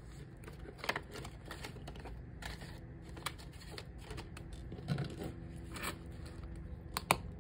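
Paper banknotes and vinyl binder envelopes rustling as cash is slid into a budget binder pocket, with a few sharp clicks. A quick double click near the end as the binder's snap closure is pressed shut.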